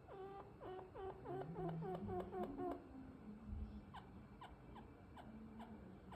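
A chinchilla and a cat calling back and forth: a quick run of short squeaky calls, about five a second, for the first three seconds, over a lower drawn-out cry. Fainter short chirps and a low held call follow.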